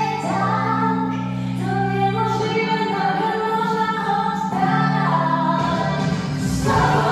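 Song with a woman's singing voice over held chords that change every second or two; a beat comes in near the end.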